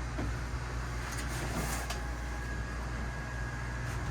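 Steady low machinery hum with a few faint knocks, like someone climbing through a narrow hatch passage.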